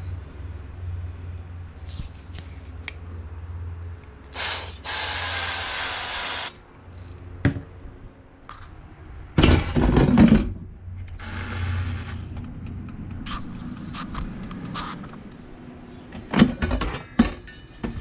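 Avocado oil spray can hissing, a brief puff then a longer spray of about two seconds. About halfway through, an air fryer basket is pushed into the fryer with a loud clatter, followed by a few sharp clicks near the end.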